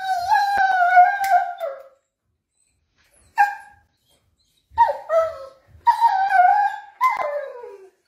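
Borzoi whining in high, wavering cries, protesting while its nails are clipped: one long cry, a short one about three seconds later, then four more in quick succession, the last sliding down in pitch.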